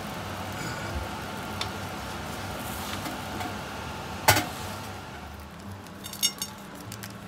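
Steady hiss and hum in the kitchen, broken about four seconds in by one sharp knock as a wooden spatula slides the galette off the crêpe griddle onto a ceramic plate, then a few light clinks of china near the end.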